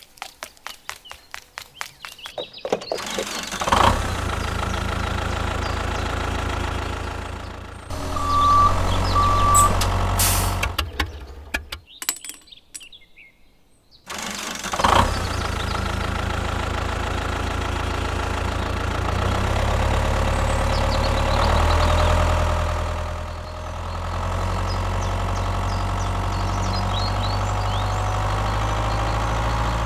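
Tractor engine starting with rapid ticking, then running steadily, with two short beeps about eight and nine seconds in. It drops out briefly near the middle, starts again and runs on, its note rising gradually for a few seconds.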